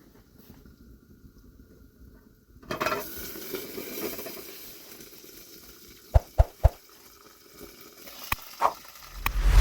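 Food sizzling in a pan: the hiss starts suddenly about a third of the way in and carries on, with a few sharp knocks of metal cookware or a utensil near the end.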